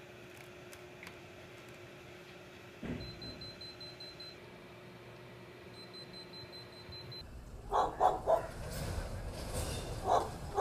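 Faint steady electrical hum with a thin high tone coming and going, then a dog barking: three quick barks about three-quarters in and two more near the end over street noise.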